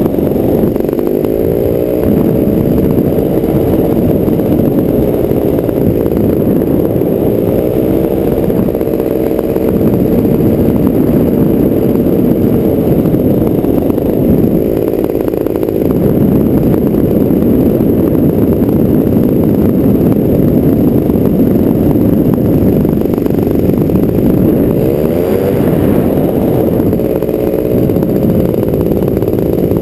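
Paramotor engine and propeller running steadily in flight, the engine note briefly rising and falling with throttle changes shortly after the start, about eight seconds in and near the end.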